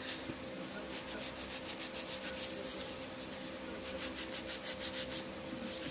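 Hand nail file rubbing back and forth across an acrylic nail in quick strokes, about five a second, in two spells: the nail being filed into shape.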